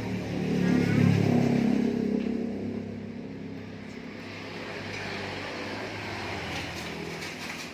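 A motor vehicle's engine passing close by, loudest about a second in, then fading away.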